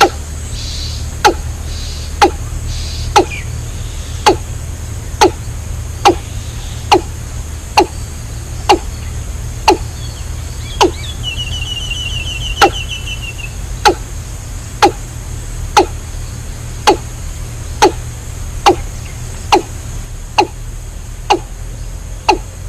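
Sharp ticks repeating about once a second over a steady low hum. About halfway through comes a short, rapid chirping trill.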